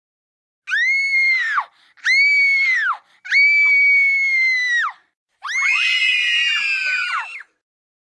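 Children screaming in fear: three separate high-pitched screams, the third held longest, then several children screaming together for about two seconds.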